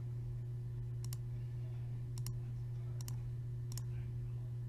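Computer mouse clicking: a few sharp clicks roughly a second apart, some in quick pairs, over a steady low hum.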